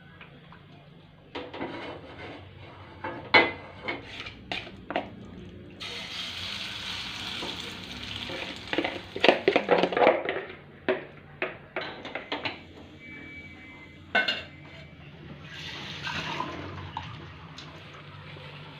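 Dishes being washed by hand at a kitchen sink: tap water running in two spells while hands scrub a plastic bowl, with repeated clatters and knocks of dishes.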